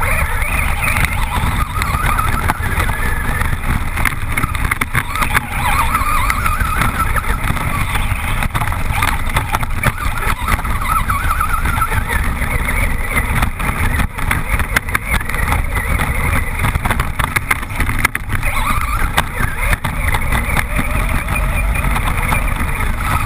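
Onboard sound of a Traxxas Rustler VXL brushless RC truck driving over rough grass: a wavering motor whine that rises and falls with the throttle over a steady rumble and wind buffeting on the camera's microphone.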